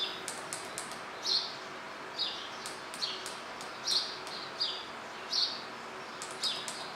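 A small bird chirping over and over: short calls that fall in pitch, about one a second. Light sharp clicks come in between.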